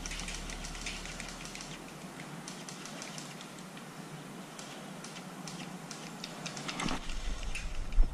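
Airsoft BBs from an opposing player whizzing past and ticking through the leaves and branches around the cover: an irregular scatter of sharp clicks. The player's gear rustles and knocks near the end as he shifts behind the cover.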